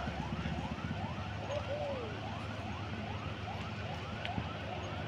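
A siren-like electronic warning tone repeating as short rising sweeps, about three a second, over the steady low running of heavy truck engines.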